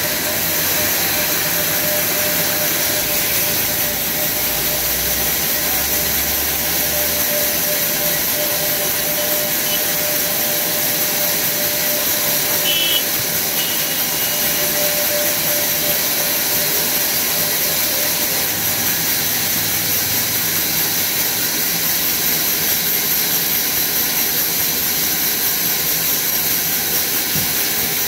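Horizontal band sawmill running, its blade cutting lengthwise through a log with a steady rushing hiss and a faint hum underneath.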